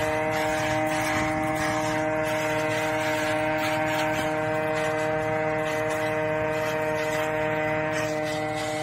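Tractor engine running at a steady speed, driving a cotton-stalk shredder. It gives a constant hum at one fixed pitch, with irregular rattling and knocking over it.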